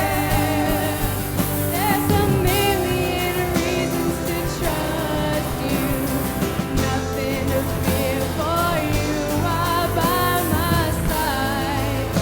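Live contemporary worship music: a full band playing under a sung vocal line.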